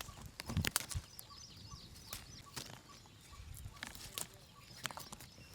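Faint bird calls with scattered short clicks and knocks.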